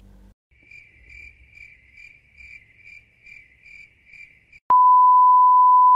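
A cricket-chirping sound effect, a thin high chirp repeating about twice a second. About 4.7 seconds in it gives way abruptly to a loud, steady beep tone like a censor bleep.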